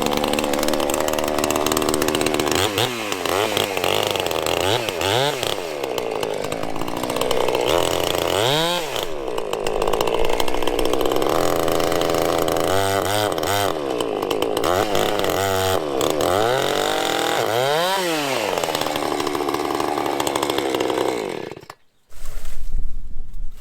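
Two-stroke chainsaw cutting through the trunk of a fallen tree, its engine pitch rising and falling several times as it takes load and revs. It cuts off suddenly about 22 seconds in, and a different noise follows.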